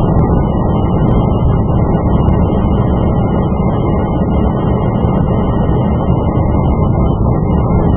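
Steady road noise inside the cabin of a 2017 Chrysler 200 while driving: an even, low rumble of tyres and engine.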